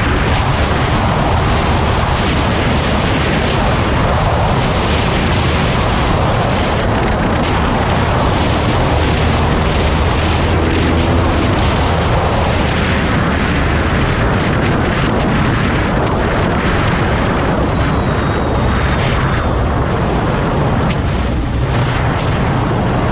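Steady wind roar buffeting the microphone of a BMW R nineT Urban G/S motorcycle riding at speed, with its engine running beneath the rush of wind.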